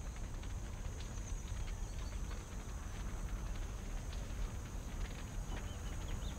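Film outdoor ambience: a steady low rumble with sparse faint clicks and a thin high whine over it.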